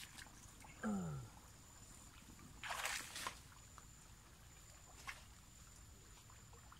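Rustling and wet sloshing as a plastic-pipe eel trap is worked into a muddy ditch bank among undergrowth, with a louder rustling burst about three seconds in. About a second in there is a short sound that falls in pitch.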